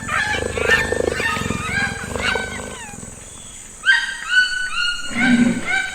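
Wild animal calls: many pitched calls overlapping, fading briefly about halfway through, then a run of evenly repeated calls.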